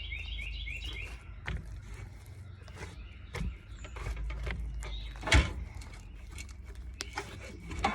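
Slime being kneaded and squished by hand, making scattered wet clicks and small pops, with a quick run of short rising squeaks in the first second. There is a sharp thump about five seconds in.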